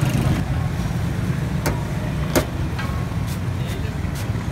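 Steady low rumble of road traffic, with about half a dozen sharp clicks or taps scattered through it, one in the middle louder than the rest.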